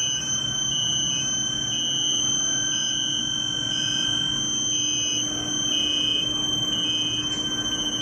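Induction heating furnace line running under power: a steady high-pitched whine from the heating coils over a lower hum and general machine noise. The whine dips slightly in pitch and returns about once a second.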